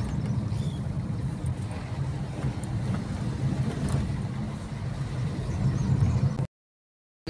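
A moving car's engine and road noise heard from inside the car, a steady low rumble that cuts off suddenly near the end.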